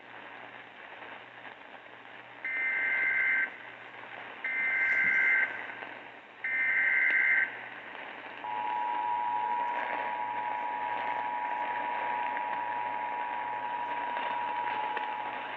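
Emergency Alert System activation received over the radio, with hiss. It opens with three one-second bursts of the SAME digital header, a shrill two-tone warble, about a second apart. From about halfway through comes the steady two-tone EAS attention signal, here ahead of a National Weather Service severe thunderstorm warning.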